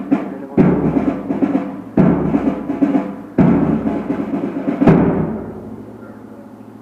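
A deep drum struck slowly, four heavy beats about a second and a half apart, each ringing on and dying away.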